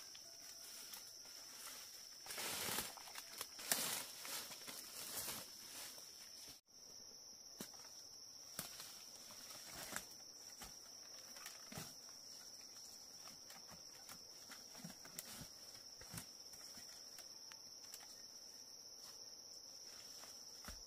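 Steady high-pitched drone of insects, with scattered rustling and light knocks from someone working close by, busiest between about two and five seconds in; the sound drops out for an instant at about seven seconds.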